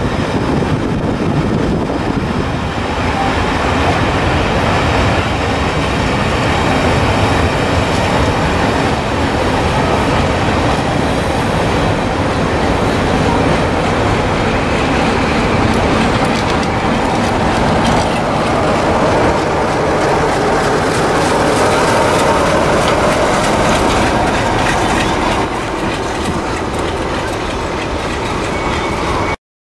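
Passenger coaches of a train rolling past at speed, a loud, steady rumble of wheels on the rails that cuts off suddenly near the end.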